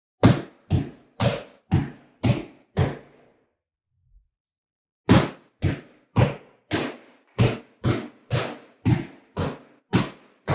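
A blunt steel arming sword, a dueling sword for full-contact combat, repeatedly striking a hanging heavy punching bag, each hit a sharp thwack. Six quick blows at about two a second, a pause of about two seconds, then a run of about eleven more at the same pace.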